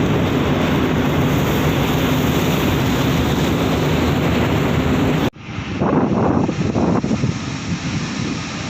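Steady low rumble under loud wind-like noise. It cuts off suddenly about five seconds in, then a few gusts swell and fade over a quieter rumble.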